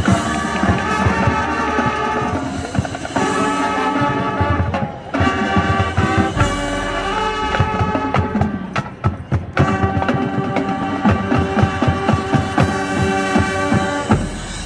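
Marching band playing: brass sections holding full chords over a steady drum-line beat, with short breaks between phrases.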